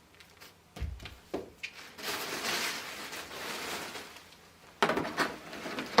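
Heavy dumbbells being set down and boxes handled: a dull thump about a second in, then a few seconds of rustling and scraping, and a few knocks near the end.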